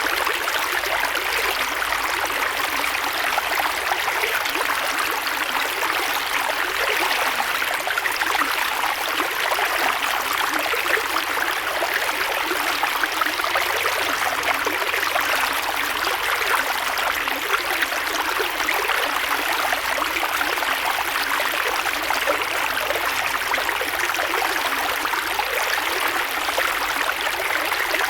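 Creek water flowing steadily over stones, a continuous rushing and babbling with many small splashes.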